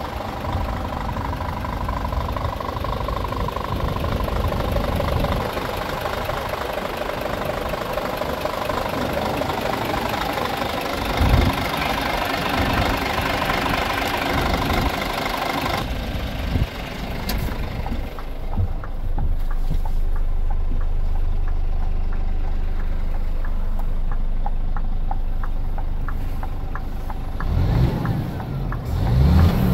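Scania G450's 13-litre inline-six diesel idling, first heard outside at the front of the truck and over the engine bay. About halfway through it changes to a low steady hum heard inside the cab, and near the end the engine is revved up.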